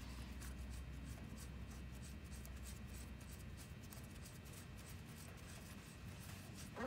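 Faint scratching and rubbing as the pinion nut is spun by hand onto the Loctite-coated threads of a truck power divider's input shaft, over a low steady hum.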